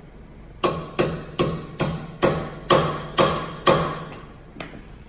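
A hammer striking metal about eight times, roughly two blows a second, each with a short metallic ring, then a fainter last blow near the end.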